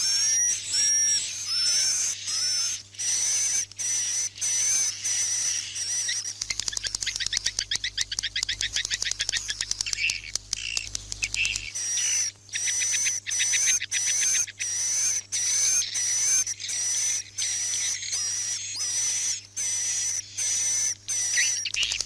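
Edible-nest swiftlets calling: dense, repeated high chirps and twitters, with a several-second run of rapid buzzy clicking chatter about a third of the way in. This is a recorded night-time roosting lure track for a swiftlet house.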